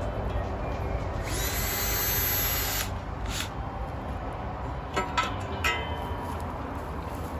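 Power drill driving a screw through a metal bird feeder's back plate into a tree trunk: one run of about a second and a half, then a brief second burst, then a few light clicks and knocks near the end.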